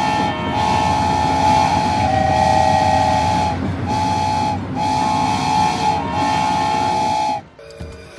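A loud, steady whistle-like tone sounding in about six long blasts with short breaks, over a rumbling noise. It cuts off suddenly near the end.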